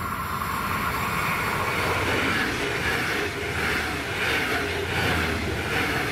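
DB Regio double-deck push-pull train with a Class 146.2 electric locomotive at the rear, passing close at speed. The rush and rumble of wheels on rail grows louder over the first couple of seconds, then carries a regular beat about every two-thirds of a second as the coaches go by.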